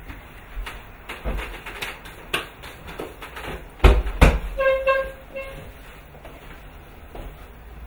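Fork and plate clinking on a kitchen table, then two heavy knocks as a chair is pushed back and a person rises, followed by a short high-pitched squeak in about three pulses.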